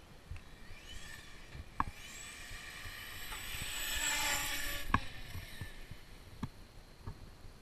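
Electric motor and drivetrain of a TR-MT8E 1/8-scale RC monster truck on 6S whining as it is driven. The pitch rises as it accelerates, the whine grows loudest and then fades as the truck passes and moves off, and two sharp knocks sound, one near two seconds in and one about five seconds in.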